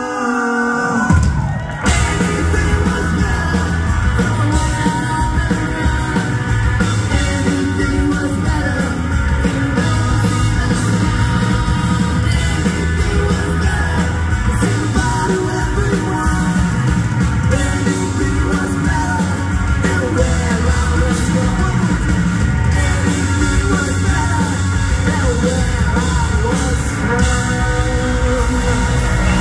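Live ska-punk band playing loud, with a woman singing lead over electric guitars, bass and drums. The full band, drums and bass included, comes in hard about two seconds in.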